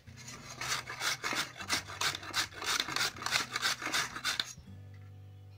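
Carrots being grated on a handheld stainless-steel grater, quick repeated scraping strokes that stop about four and a half seconds in.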